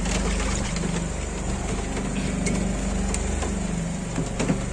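A boat's engine running steadily, with rain hissing on the boat and the sea, and a few sharp knocks near the end.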